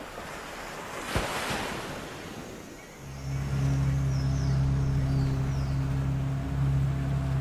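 Sea water washing and wind on the microphone, swelling briefly about a second in. About three seconds in, a louder steady low drone comes in and holds.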